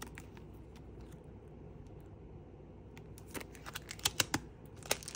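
Craft products in their packaging being handled: faint rustling at first, then from about three seconds in a quick run of sharp crinkles and clicks.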